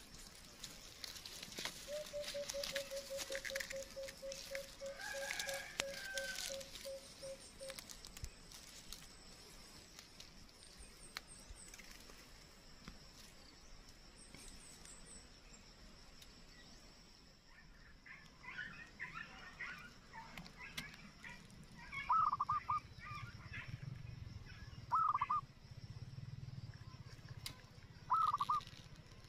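Birds calling, among them fowl. A run of quick, evenly spaced low hoots comes a couple of seconds in, and three short loud calls come near the end, over a steady high buzz.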